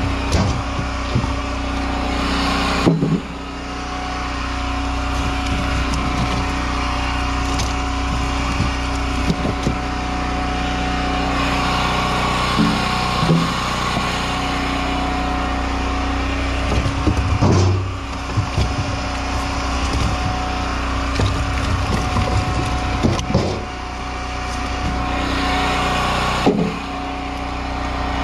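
Log splitter's engine running steadily. Its note drops suddenly about three seconds in and again near the end, and there are sharp cracks and knocks of firewood splitting and being handled, loudest a little past the middle.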